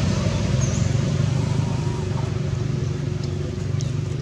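Steady low engine hum of a motor vehicle running nearby, with a faint short high chirp about half a second in.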